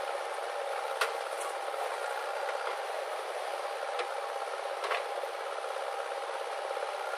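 JCB backhoe loader's diesel engine running steadily while it loads soil into a tractor trolley, with three sharp knocks about one, four and five seconds in.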